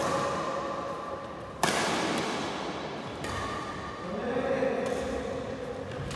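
Echoing badminton-hall sound between rallies: indistinct voices and one sharp knock about a second and a half in.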